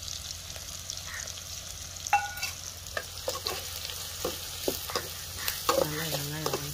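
Chopped onions and curry leaves frying in oil in an aluminium kadai, sizzling steadily, while a perforated steel ladle stirs them and scrapes and taps against the pan in scattered clicks.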